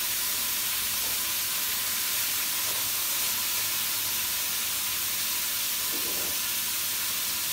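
Oxtail pieces sizzling as they brown in oil in a stainless steel frying pan: a steady hiss.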